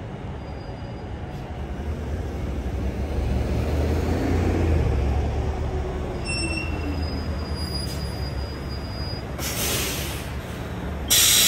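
MCI diesel commuter coach pulling in and slowing to a stop. Its engine rumble grows louder, then falls in pitch as it slows. A thin brake squeal comes about six seconds in, a short hiss of air near ten seconds, and a loud air-brake hiss starts suddenly just before the end.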